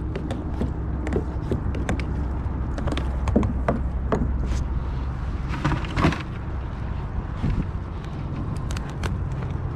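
Scattered knocks, taps and clatter of a landing net, gear and a freshly caught sheepshead being handled aboard a plastic kayak, with the loudest knocks about six seconds in, over a steady low rumble.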